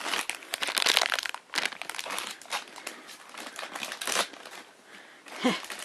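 Packaging of a blind-box vinyl figure crinkling and rustling as it is opened and handled, in loud spells with short pauses.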